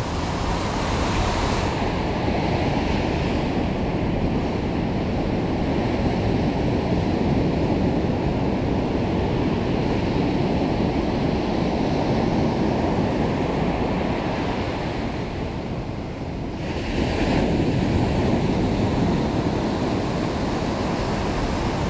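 Ocean surf washing on the beach, with wind buffeting the microphone. A steady rush that eases briefly about sixteen seconds in, then picks up again.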